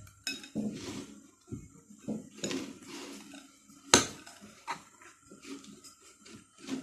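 A spoon stirring thick slime in a plate, scraping and clinking irregularly against the dish, with one sharp clink about four seconds in.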